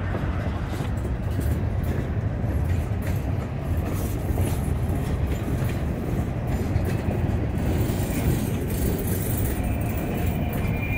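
Freight train rolling past at close range: a steady rumble of steel wheels on rail from boxcars and covered hoppers, with a stream of short wheel clicks and clacks.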